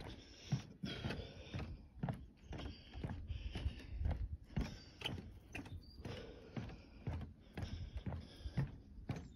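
Footsteps on a wooden boardwalk: steady walking with about two dull knocks a second, plus light rustling.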